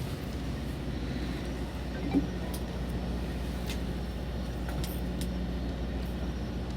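Steady low drone of a fishing boat's engine running, with a few light clicks and ticks on top, the most distinct about two seconds in.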